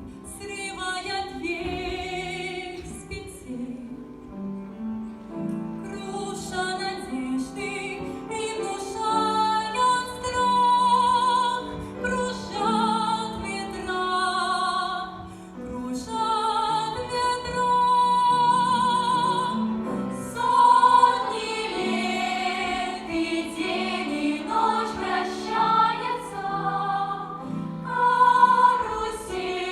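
Song: a sung melody with pronounced vibrato over instrumental accompaniment.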